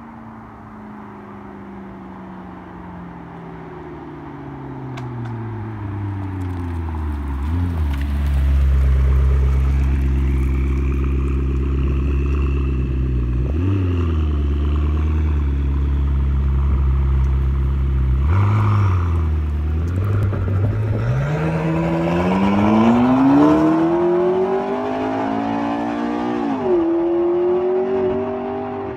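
McLaren MP4-12C's twin-turbo V8 engine running under way. Its note falls and settles into a low steady drone, with two short rev blips. It then rises as the car accelerates, with a brief dip in pitch near the end before it climbs again.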